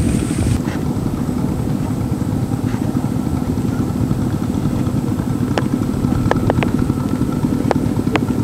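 Small motorcycle engine running at a steady speed while riding along.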